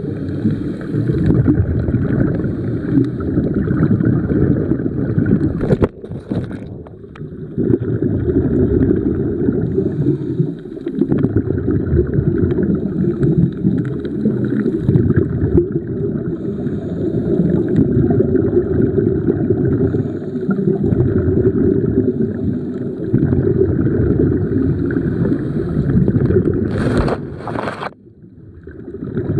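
Muffled underwater rumble picked up by an underwater camera, a low rush of water that swells and dips every few seconds. Near the end a few sharp knocks, then the rumble drops away briefly.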